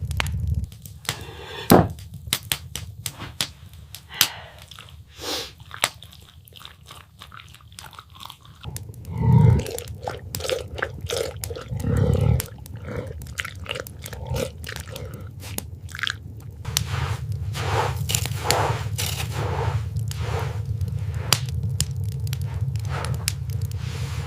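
Wood fire crackling with sharp clicks over a steady low rumble, mixed with an animal chewing. Two louder, short low sounds come about halfway through.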